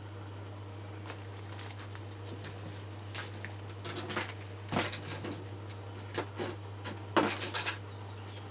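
Steady low hum under a run of irregular light knocks and clatters, which start about three seconds in; the loudest comes about seven seconds in.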